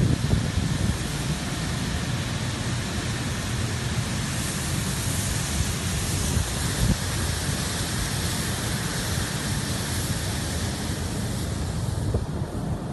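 Steady rushing hiss of grain pouring from a loading spout into a cargo ship's hold, growing brighter about four seconds in and easing near the end. Wind buffets the microphone with low rumbling thumps throughout.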